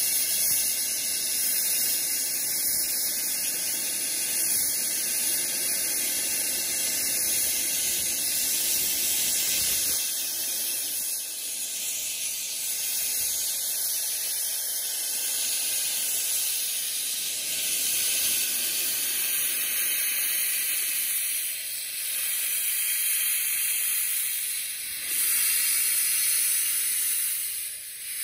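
Steady hiss of steam blowing from the cylinder drain cocks of Southern Maid, a one-third-scale 4-6-2 steam locomotive standing in steam, slightly louder for a couple of seconds near the end.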